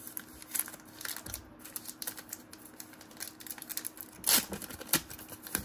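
Basketball trading cards being flipped through by hand: a run of light, irregular clicks as the card edges slide and snap past one another, with a louder rustle about four seconds in.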